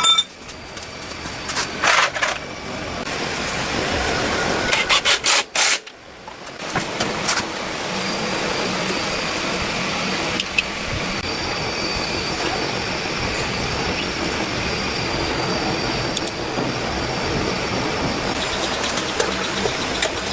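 Moto Dream 100cc motorcycle engine being started: a few short, rattly bursts in the first six seconds, then the engine catches about six and a half seconds in and idles steadily.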